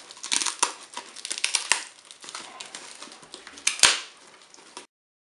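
Crinkling and rustling of the protective plastic wrapping around a NAS unit as hands pull and unfold it, with a sharp snap a little before the end. The sound cuts off suddenly near the end.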